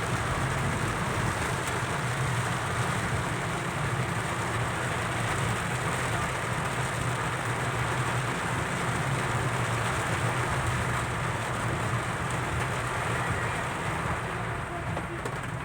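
Heavy rain pelting a car, heard from inside the cabin, over the car's steady low hum. The rain noise eases slightly near the end.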